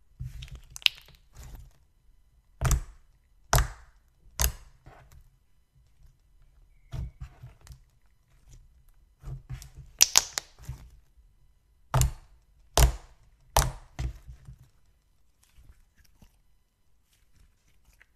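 Hands squishing and pressing into thick slime: about a dozen sharp smacks and pops, irregularly spaced, with soft crackling between them as air is squeezed out.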